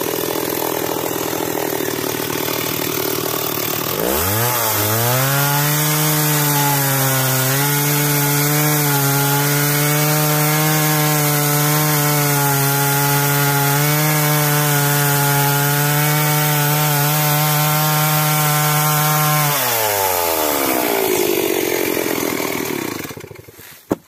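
Stihl two-stroke chainsaw running at speed and cutting into a tree trunk, settling to a steady, lower working pitch about four seconds in. Near the end the pitch falls away as the throttle comes off, and the saw goes quiet just before the close.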